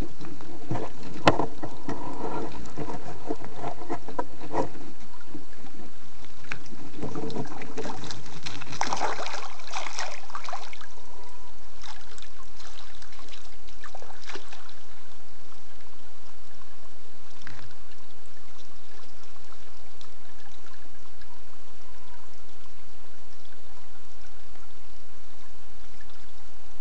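Steady rush of river water, broken in roughly the first ten seconds by close knocks, bumps and rustling as otters bang against the camera trap and its tripod. One sharp knock about a second in is the loudest.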